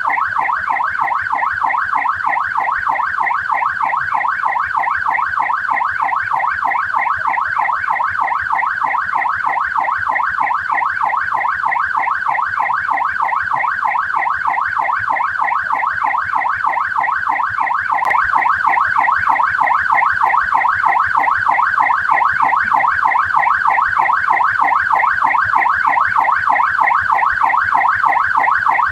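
Australian police car siren sounding continuously in a fast yelp, its pitch sweeping up and down several times a second without a break. It gets a little louder about two-thirds of the way through.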